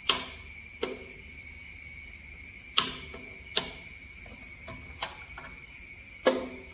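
A series of sharp mechanical clicks and knocks, about eight at irregular intervals, three of them louder than the rest, over a faint steady high-pitched tone.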